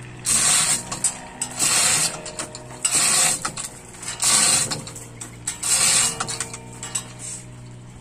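Hand-pulled chain hoist, its chain rattling and clattering through the block in about five strong pulls a little over a second apart, then a few lighter clinks.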